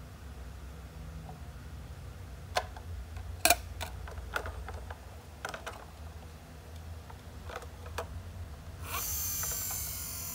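Hard plastic clicks and clacks from a toy garbage truck being handled, its rear hopper lid moved on its hinge: about eight sharp clicks, one a few seconds in louder than the rest, over a steady low hum. Near the end a higher hissing whir comes in.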